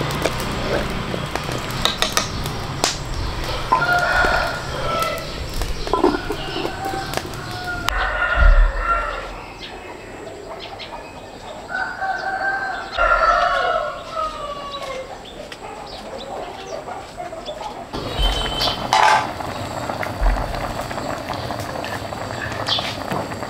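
Chickens around a farmyard, with a rooster crowing a few times and hens clucking, over scattered knocks.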